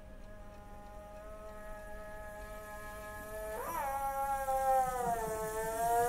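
A long, drawn-out howl: one held note that swoops sharply up and back down about two-thirds of the way through, then slides slowly lower. It grows louder as it goes.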